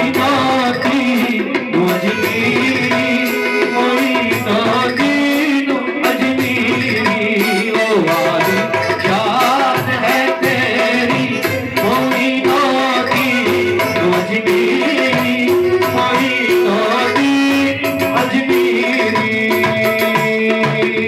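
Qawwali-style Sufi devotional music: tabla playing a steady rhythm under held keyboard melody notes, with a singing voice at times.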